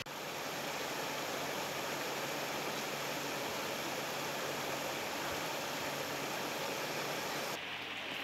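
Shallow river water rushing steadily over stones in a small riffle.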